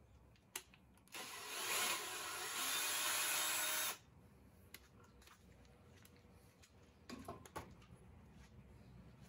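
Ryobi cordless drill running for about three seconds as it winds a stud out of a small engine cylinder head. It starts about a second in and stops abruptly, and a few light clicks follow near the end.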